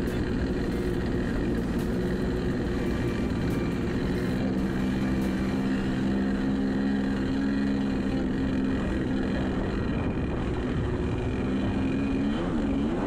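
Kawasaki 650SX two-stroke twin engine in a 550SX stand-up jet ski hull running at steady throttle, with water spray hissing along the hull. The engine note wavers briefly near the end.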